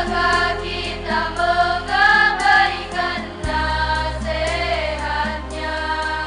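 Female choir singing a song in several parts, with held, gliding notes over a steady low bass note that changes about three and a half seconds in.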